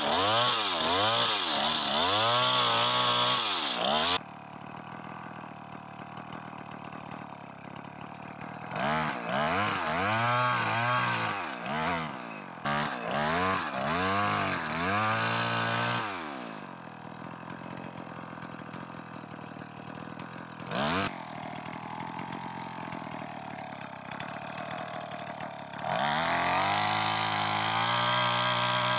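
Two-stroke chainsaw engine revved in quick repeated throttle blips, settling back to idle between bursts. There is a brief blip partway through, and near the end it is held at steady high revs.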